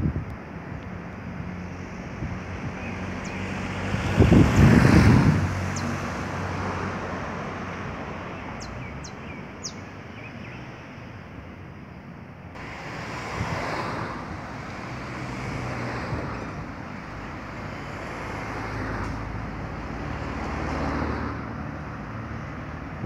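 Street traffic noise from passing cars, swelling and fading several times as vehicles go by, the loudest pass about four to five seconds in.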